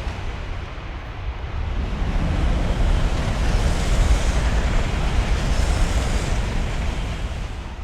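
Ambience recording of a rushing roar with a heavy deep rumble, swelling in the middle and fading toward the end.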